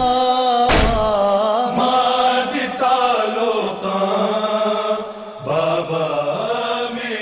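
A noha, a Muharram lament in Punjabi, chanted by a solo voice in long held, wavering notes. A heavy thump comes about a second in.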